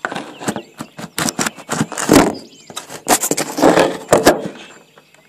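A phone being handled and set down: rapid knocks, rubs and scrapes of a hand and the phone against the microphone, loudest between about two and four and a half seconds in.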